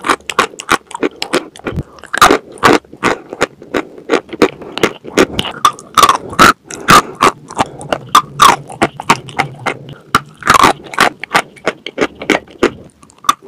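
Close-miked chewing of dry chalk: chunks bitten and ground between the teeth in rapid, crisp crunches and cracks, several a second.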